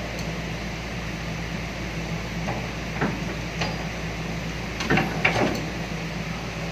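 Hydraulic excavator's engine running steadily as the bucket is lowered, with a few sharp knocks from the bucket and its linkage, the loudest about five seconds in.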